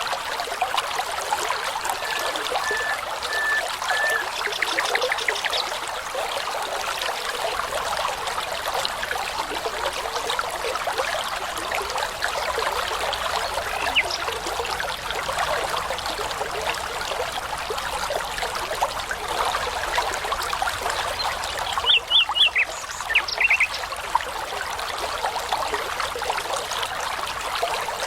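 Brook babbling steadily over stones, with brief songbird calls: a few short repeated notes a couple of seconds in, and a louder cluster of sharp chirps about three-quarters of the way through.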